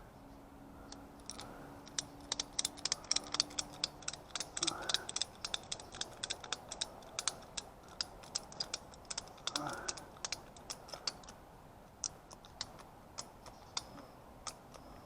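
Ratchet strap being cranked tight, its pawl making runs of sharp clicks. The clicks start about two seconds in, come quickly for several seconds, then thin out near the end.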